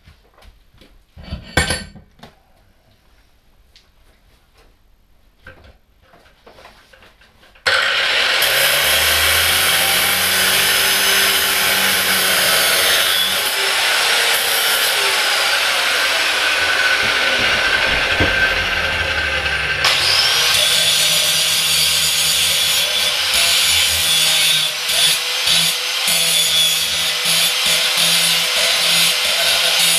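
Handheld grinder cleaning up a bolt, starting abruptly about eight seconds in after a few quiet metal clinks and then running continuously to the end. Its pitch bends slowly as it works, with a short break near the middle.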